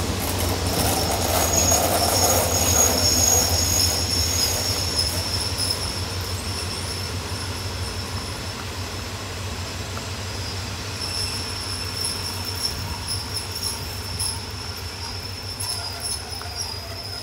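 Passenger coaches of a State Railway of Thailand train rolling past over the junction's points, their wheels squealing in a steady high-pitched whine over a low rumble. The sound is loudest about two to three seconds in and slowly fades as the train draws away.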